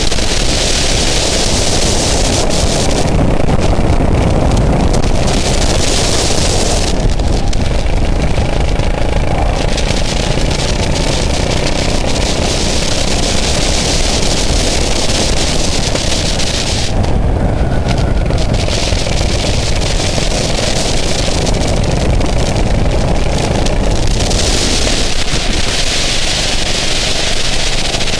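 Go-kart engine running at speed through laps, heard from a camera mounted on the kart, with wind noise on the microphone; the high hiss thins out briefly several times.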